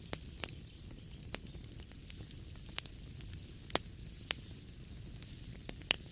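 Wood fire crackling in a fireplace: a low steady hiss of burning with irregular sharp pops and snaps, the loudest a little before the middle and near the end.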